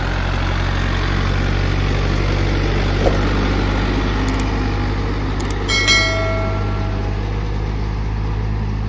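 Yanmar farm tractor's diesel engine running steadily. About six seconds in, a couple of clicks and then a short bell-like ding that rings out for about a second, from a subscribe-button animation.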